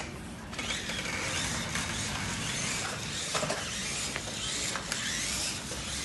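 Remote-control rock-crawler toy truck's small electric motors and gearboxes whirring as it drives, the whine rising and falling as the throttle changes, with a few clicks.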